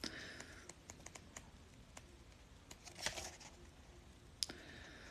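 Faint scattered clicks and light rustles of hands handling tarot cards and a guidebook on a tabletop, with a louder rustle about three seconds in and a sharp tap shortly after.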